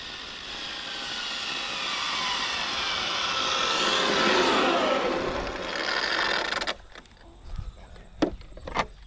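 Electric RC speed-run car driving back along the road: motor whine and tyre noise grow louder, then the whine falls in pitch as the car slows about four to five seconds in, and it cuts off suddenly near seven seconds. A couple of sharp knocks follow as the car is picked up.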